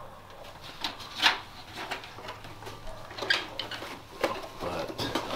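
Light clicks, knocks and rubbing of a white plastic RV roof vent fan housing being handled and offered up to the ceiling opening, with a sharper click about a second in.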